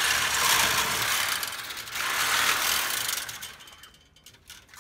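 Corded reciprocating saw cutting through the copper tubes of an air-conditioning coil. It runs in two stretches with a brief dip about two seconds in, then stops near the end.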